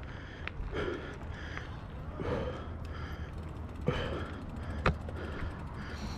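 A cyclist's heavy breathing, gasping breaths about every second and a half, over a steady low rumble with a few sharp clicks.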